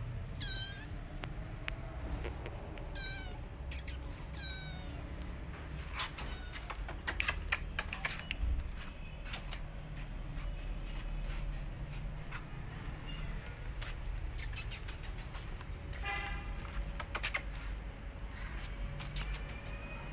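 Tiny kitten mewing in short, high-pitched calls, three times in the first five seconds and once more near the end. Scattered sharp clicks and taps come between the calls, thickest in the middle.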